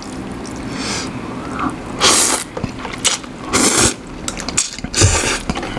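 A man slurping instant noodles off chopsticks, in three loud sucking pulls about a second and a half apart.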